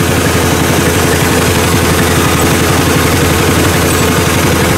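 A small fishing boat's engine running steadily at an even speed, with no change in pitch.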